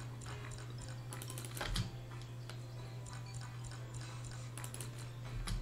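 Online slot game's spin sound effects: rapid clicking as the reels spin, with a heavier thud about two seconds in and again near the end as a spin lands, over a steady low hum.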